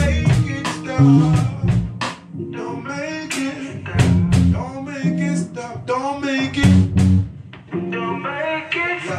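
Live rock band playing: drum kit, guitar and bass with a singing voice over them. The drums drop back for a moment about two seconds in and again near the end.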